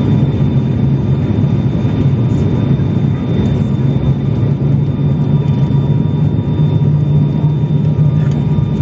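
Steady drone of an ATR 72's turboprop engines and propellers, heard inside the passenger cabin during the approach to landing. A strong low hum sits under faint, steady high whines.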